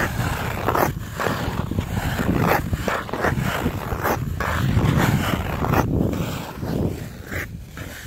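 Ice skates on a frozen pond: blades scraping and gliding across the ice in irregular strokes, over a low rumble.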